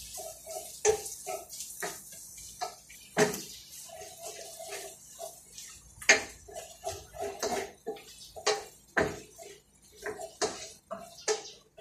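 Wooden spatula stirring food in a stainless steel frying pan: irregular clicks, knocks and scrapes against the pan. Faint short pitched sounds come and go in the background.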